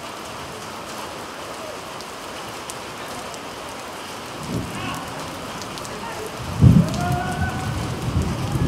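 Heavy rain falling steadily. About six and a half seconds in, a sudden loud low rumble rises above the rain and stays raised to the end.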